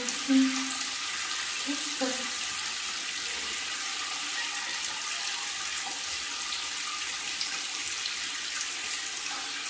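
Water running steadily from a tap in a tiled bathroom. A short vocal sound about half a second in, the loudest moment, and another about two seconds in.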